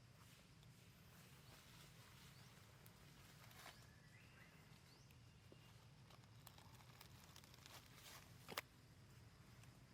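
Near silence: a low steady hum with faint scattered rustles and clicks, and one sharper click near the end.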